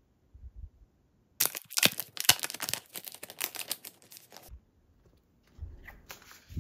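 Plastic packaging sleeve crinkling and crackling for about three seconds as sticker sheets are slid out of it, followed by soft low bumps near the end as the sheets are laid down on the table.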